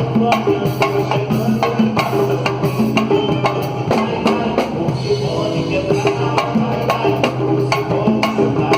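Live samba band playing, with percussion striking a steady, quick beat under held melodic notes.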